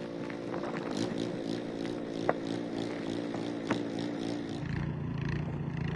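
Engine running steadily with a slightly wavering hum, with scattered short clicks and scrapes over it; near the end the sound changes to a deeper, lower hum.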